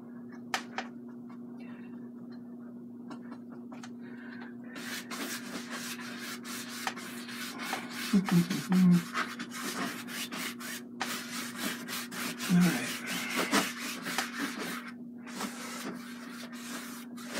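Bristle brush scrubbing oil paint and liquid clear onto a stretched canvas: short brushing strokes in quick succession, most of them from about five seconds in, over a steady low hum.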